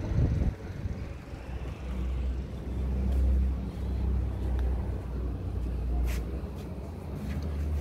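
Wind buffeting the microphone: a low rumble that swells and fades, with a faint click or two about six seconds in.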